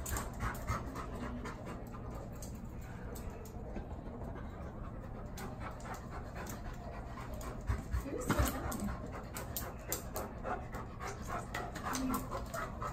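Large black dog panting quickly and rhythmically while being handled.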